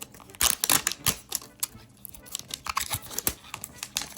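Mystery-toy packaging crackling and clicking irregularly as it is pulled and pried at by hand while being forced open.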